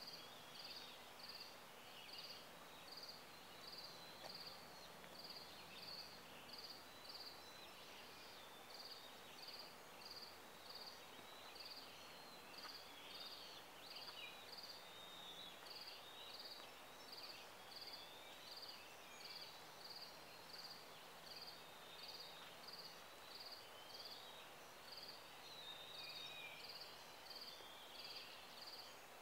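Faint outdoor ambience: a high chirp repeating evenly about once a second, with scattered bird calls beneath it.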